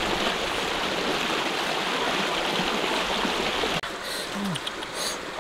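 Shallow jungle stream running steadily over rocks, cutting off suddenly nearly four seconds in, leaving a quieter background with a few light clicks.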